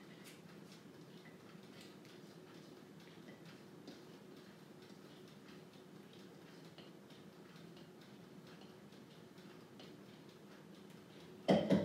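Light ticks and scrapes of a spatula scraping an egg-and-cream mix out of a mixing jug into a bowl, over a low steady hum. Near the end, two loud knocks close together.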